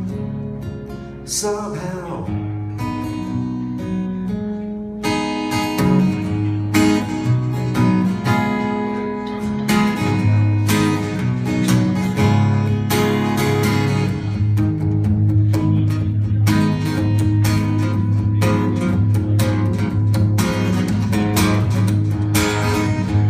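Acoustic guitar strumming a slow country ballad, with a single sung word, "somehow", about two seconds in, then an instrumental passage. The playing grows fuller and brighter about five seconds in.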